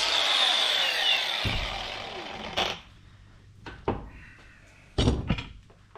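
A power tool that has just cut through a length of threaded rod winds down, its whine falling in pitch and fading over about two seconds. Then come a sharp knock and a few lighter metal clicks and clatters as the cut piece and tool are handled.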